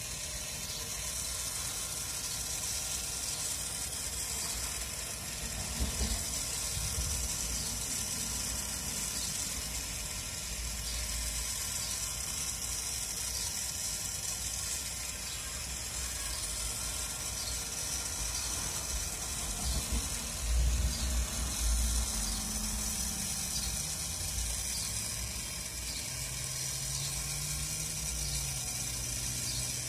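Electric rotisserie motor turning a spit over a charcoal kettle grill, a steady mechanical running sound with a constant hiss. A few low rumbles come through, the loudest about two-thirds of the way in, and a low droning tone rises and falls near the end.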